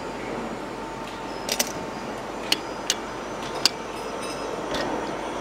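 Half a dozen sharp metallic clicks and taps as metal parts and tools are handled at a stopped three-jaw lathe chuck, over a steady workshop hum.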